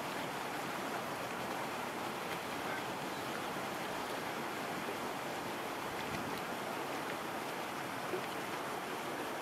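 Steady lakeside outdoor ambience: an even wash of wind and water noise, with a few faint ticks.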